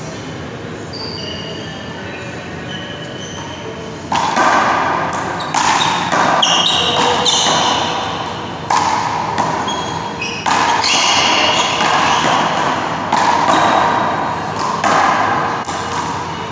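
One-wall handball rally: sharp slaps of hand on ball and ball off the wall, echoing in a large hall, about every one to two seconds from about four seconds in. Short sneaker squeaks on the court floor can be heard between them.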